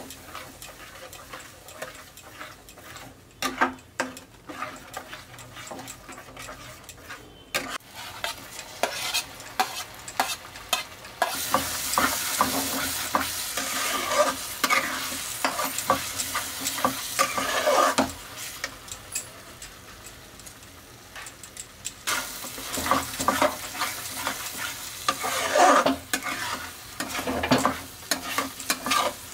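A metal spatula scraping and stirring a thick masala paste in a frying pan, the paste sizzling in hot oil. The sizzle swells twice, in two longer stretches through the middle and later part, between runs of quicker scrapes against the pan.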